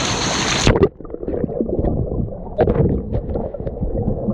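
A waterfall rushing, then under a second in it cuts off suddenly to a muffled underwater rumble with gurgling and bubbling as the GoPro goes under the water of the plunge pool.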